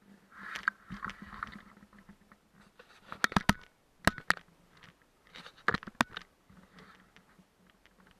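Muffled sound from a camera mounted on the outside of a moving car: a faint steady hum with sharp knocks and rattles, grouped about three to four seconds in and again about six seconds in.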